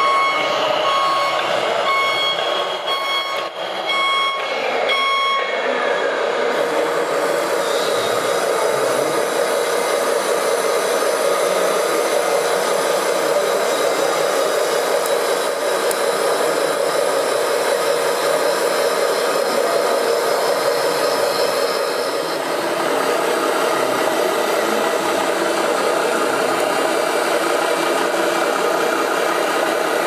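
Scale RC Volvo FH16 tipper truck's reversing beeper sounding repeatedly for the first five seconds or so. Then the model runs steadily, engine sound and tipper hydraulics, while the tipper body lifts and dumps its load of dirt.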